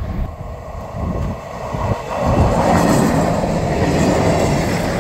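A vehicle running: a steady rumble that grows louder about two seconds in.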